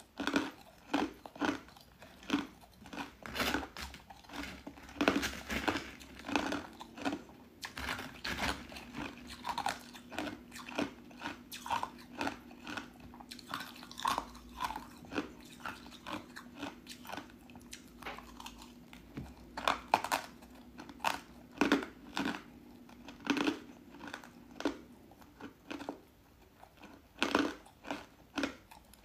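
Crisp pieces of white ice coated in powdered matcha being bitten and chewed close to the microphone: irregular crunches, several a second with short pauses, the loudest bursts about twenty seconds in and near the end.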